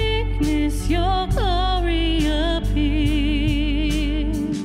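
Live worship band playing, with a singer holding long notes with vibrato over drums, bass and keys.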